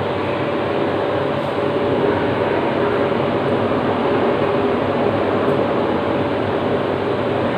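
Spiral dough mixer running empty at slow speed, its motor and drive giving a steady mechanical hum.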